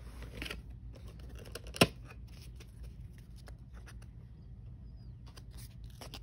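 Cardboard blind box and a thin collectible card being handled: the card scraping and rustling as it slides out of the box, then small clicks and taps as it is turned over in the fingers. One sharp click about two seconds in is the loudest sound.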